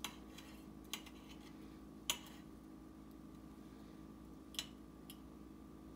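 Knife and fork clicking against a plate while cutting a slice of fried calf liver: about five short, sharp clicks, the loudest about two seconds in, over a faint steady hum.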